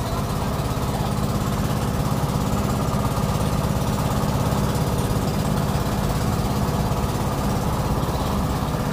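Small engine of a wooden outrigger boat running steadily underway, a dense, even drone.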